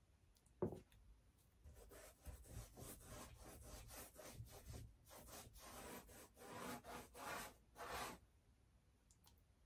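Faint scrubbing strokes of a paintbrush on a canvas: a quick run of short rubbing strokes, with one sharp tap about half a second in.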